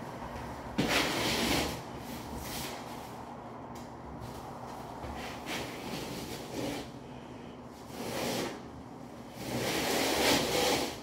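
Notched steel trowel scraping and spreading thinset mortar across a concrete floor, in a series of uneven strokes, the longest and loudest near the end.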